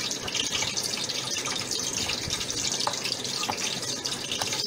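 Hands kneading a soft mashed-potato and rice-flour dough in a glass bowl: a steady moist squishing with a few light clicks.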